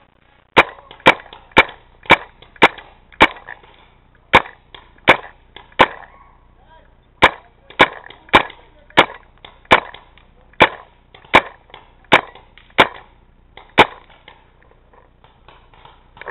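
Paintball marker firing single shots in quick succession: about twenty sharp, loud pops, roughly two a second, with a short pause about halfway.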